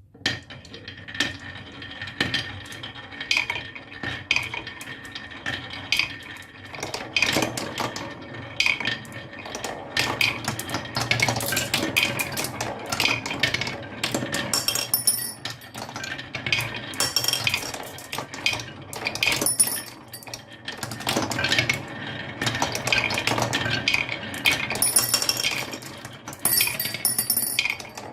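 Many marbles rolling and clattering down a marble run, a dense stream of clicks and knocks that starts suddenly, with bright ringing clinks now and then.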